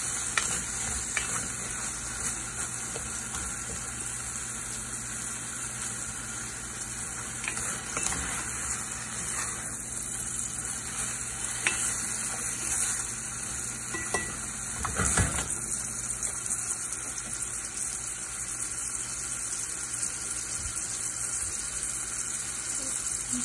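Granny Smith apple slices sizzling in melted butter in a stainless steel saucepan, a steady hiss, with a wooden spoon stirring and scraping against the pan now and then; the loudest knock of the spoon comes about fifteen seconds in.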